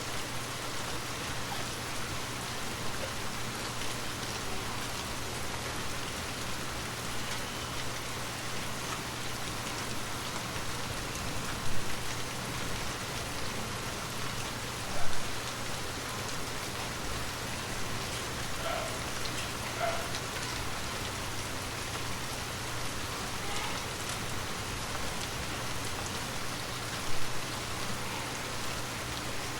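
Gentle rain falling steadily, with a low steady hum underneath. Three louder single taps stand out, about twelve, fifteen and twenty-seven seconds in.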